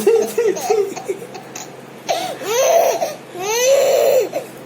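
Baby laughing: a quick run of short giggles in the first second, then two long, high-pitched squealing laughs that rise and fall, about two and three and a half seconds in.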